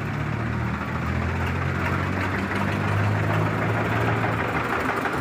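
Tractor engine idling: a steady low hum that swells a little in the middle.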